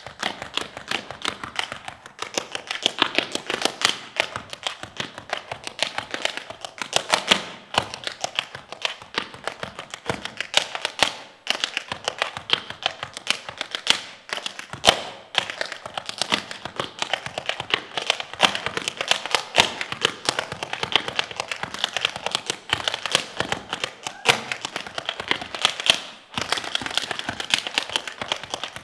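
Tap shoes striking a stage floor in a rapid, dense run of taps, with a few louder single strikes standing out.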